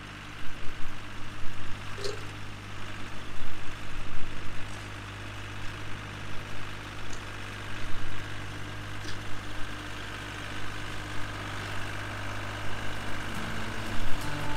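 Engine of garden machinery running steadily at an even speed.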